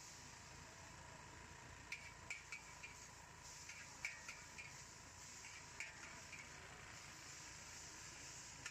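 Metal wok spatula clinking and scraping against a wok as noodles are stir-fried, in irregular groups of sharp clinks from about two seconds in, over a steady sizzle.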